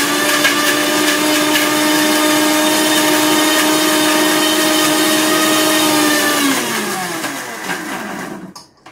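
Electric mixer grinder running at a steady high pitch, grinding chopped apple and pitted dates in its steel jar with no milk added yet. About six seconds in it is switched off and the motor winds down with a falling whine.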